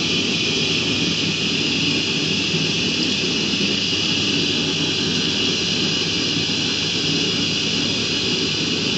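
Electric Automatic Dog Brush running steadily as it brushes out a severe tangle in a dog's coat.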